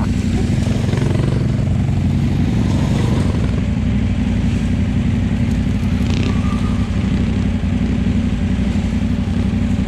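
Dirt bike engine idling steadily close by, with other trail bikes running on the track.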